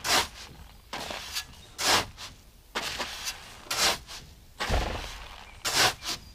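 A shovel scoops and tosses granular fertilizer in a trailer. There are four loud scraping swishes of the granules about two seconds apart, with softer rustles between them and a dull thump shortly before the last swish.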